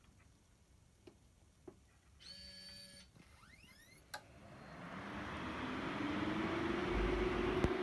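Projector starting up: a few faint clicks and a short beep, then a sharp click, then its cooling fan spinning up with a rising whir that levels off into a steady hum.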